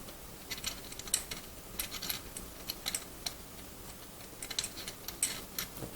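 Irregular light clicks and taps of small metal parts being handled: the bolt, nut and washer of a kids' bike seat clamp being fitted, in several small clusters.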